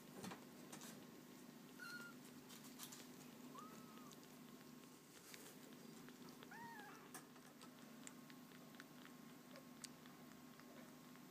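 A newborn kitten suckling milk from a bottle nipple, faint: soft clicks from the sucking, and three short, tiny mews spread through it.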